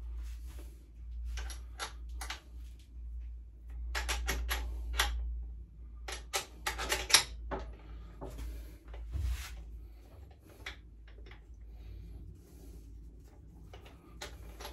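Scattered sharp clicks and taps of bolts and hand tools being handled while fitting bolts to a pit bike, bunched in two quick clusters a few seconds in, over a steady low hum.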